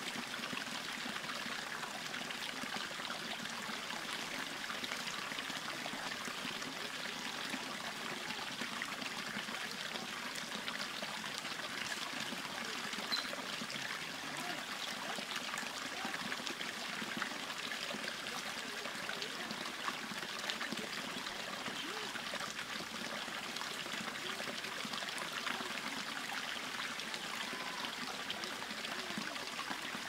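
Freshwater spring water trickling steadily over rocks into a shallow pool, with many small splashes and no breaks.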